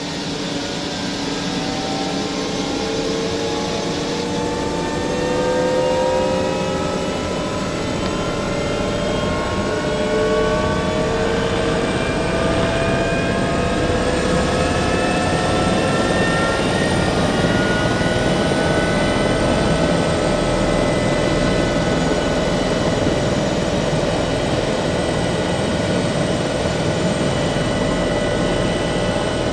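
Airbus H145's twin Safran Arriel 2E turboshaft engines and rotor running up after start, heard from inside the cockpit: a turbine whine rising in pitch over the first fifteen seconds or so, then holding steady.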